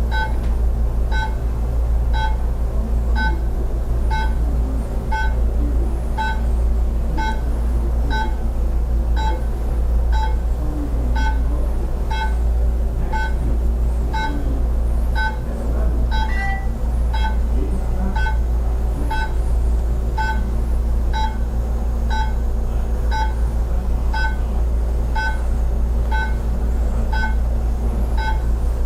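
An electronic beep repeating evenly, about three beeps every two seconds, over a steady low hum.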